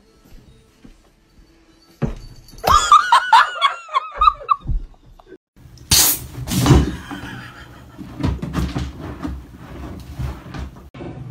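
A young goat bleating once in a high, fast-wavering call for about two seconds, followed by a sharp knock and irregular rustling and bumping.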